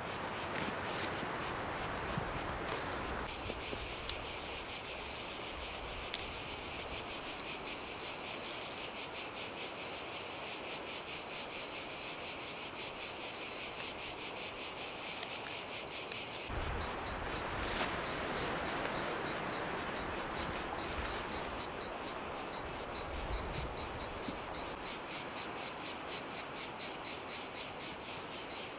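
Insects singing in a high-pitched, evenly pulsing chorus, a few pulses a second, with faint rustling underneath.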